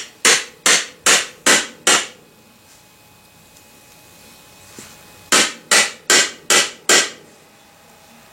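PVC pipe fittings being hammered onto pipes to seat the joints: a quick run of about six sharp blows, a pause of about three seconds, then another run of about five, each blow roughly 0.4 s apart.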